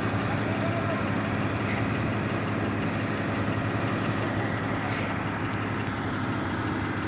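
Heavy engine of road construction machinery running steadily, a low even drone with a noisy rumble over it.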